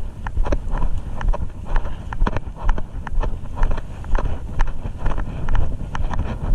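Wind buffeting the microphone with a steady low rumble, and many short, irregular clicks and knocks throughout.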